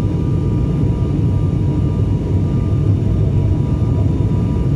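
Cabin noise of an ATR 72 turboprop airliner on short final just above the runway: a steady, loud low drone from the engines and propellers, with a faint steady whine on top.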